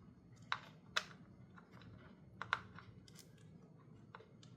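Faint, irregular light clicks and taps of small metal parts as a 10 mm lock nut is started by hand on the quick shifter's mounting bolt, about six clicks in all, two close together past the middle.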